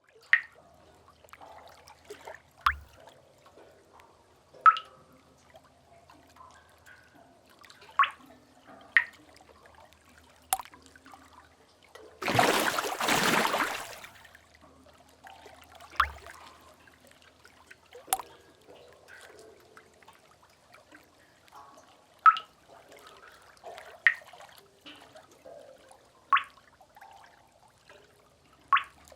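Sea cave ambience: water drops falling into water at irregular intervals, each a short, bright plink, about a dozen in all. Near the middle a splash of water rushes in loudly for about two seconds and dies away.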